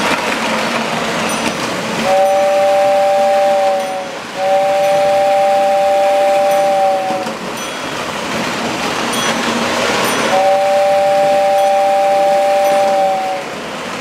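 Lionel toy train whistle sounding a steady two-note chord in three long blasts, each sagging slightly in pitch as it cuts off, over the steady running noise of an O-gauge train on tinplate track.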